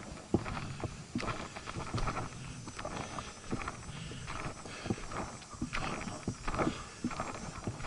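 A hiker's footsteps on a trail: irregular footfalls and scuffs on rock and gravel.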